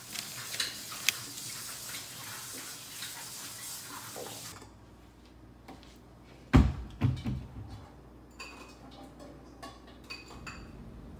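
A steady hiss for the first four seconds or so, then a loud crack followed by a few smaller cracks and light clicks as brittle homemade dalgona sugar candy is snapped and handled.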